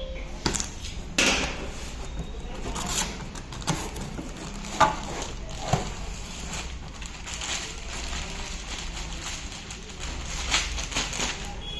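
Irregular knocks, taps and rustling, as of fan parts and packaging being handled and set down, with the loudest knocks a little over a second in and near five seconds in.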